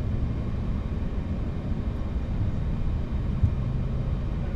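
Boeing 737-800's CFM56-7B turbofan spooling up during its start, with EGT rising, heard inside the cockpit as a steady low rumble; a low hum joins about three and a half seconds in.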